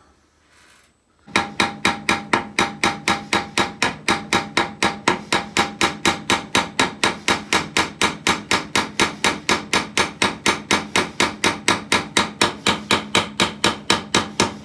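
Small hammer tapping steadily and quickly, about four blows a second, peening the end of a Bowie knife's steel tang over its brass butt cap; the blows ring faintly. The tapping starts about a second in.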